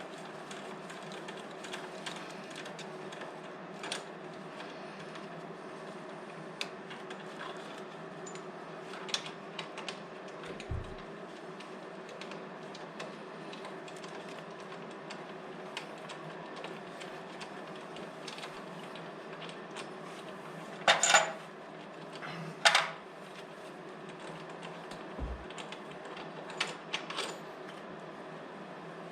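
Hand tools and metal parts clicking and clinking while motorcycle front-end parts (wheel speed sensor, brake caliper) are unbolted, with two loud sharp metallic clacks about two-thirds of the way through, over a steady workshop hum.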